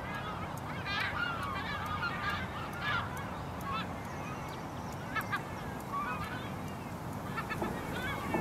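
Waterbirds on a lagoon calling, many short honking and piping calls from several birds overlapping in irregular runs, over a steady low background hiss.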